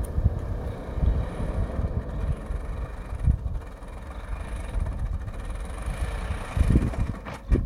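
Chevrolet Beat hatchback driving slowly along a dirt track, its engine running and tyres rolling on the dirt, with a low uneven rumble throughout.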